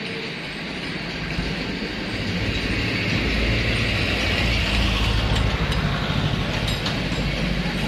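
A motor engine running, a low rumble that grows louder about a second and a half in and then holds steady.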